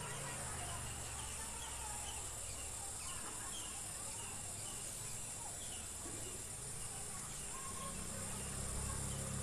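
Outdoor ambience: birds chirping now and then over a steady high insect buzz and a low steady hum.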